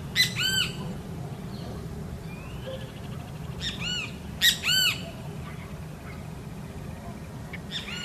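Keel-billed toucan calling: short, loud notes that rise and fall in pitch, given in pairs: two near the start, a cluster around four to five seconds in, and one more near the end, over a steady low background hum.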